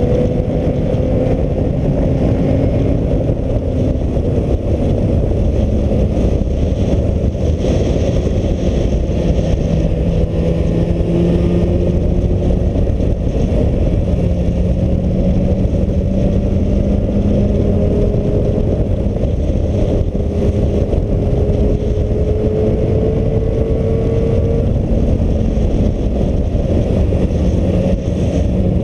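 Heavy, steady wind buffeting on the action camera's microphone while riding at speed, drowning most else. Under it the Suzuki Bandit's inline-four engine is faintly heard, its note rising and falling with the throttle several times.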